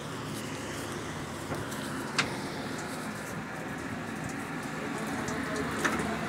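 Small boat's engine running steadily, with a sharp click about two seconds in and a couple more near the end.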